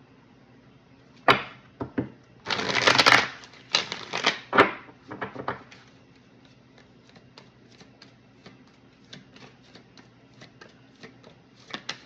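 A deck of oracle cards being shuffled by hand: a sharp snap about a second in, a burst of riffling between two and three seconds, a few more card slaps, then light ticking as cards are handled.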